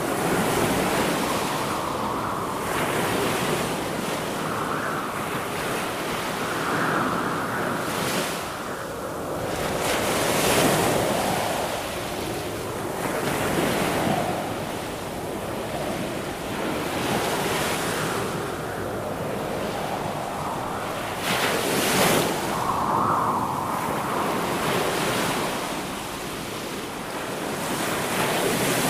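Sea surf: waves breaking and washing in, swelling and easing every few seconds, with the rush of wind over it.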